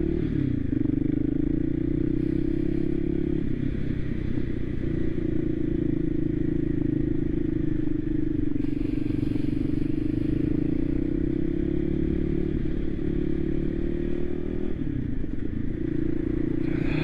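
Voge 300 Rally's single-cylinder engine running at a steady speed on the move, its note dropping briefly near the start and again about fifteen seconds in.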